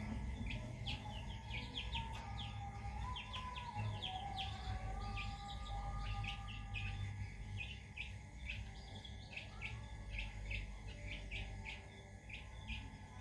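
Small birds chirping: a rapid string of short, high chirps, several a second, over a steady low rumble.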